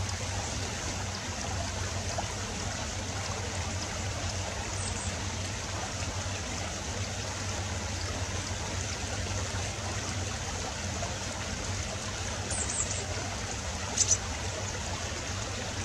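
Steady rushing, stream-like noise, with a brief sharp click about fourteen seconds in.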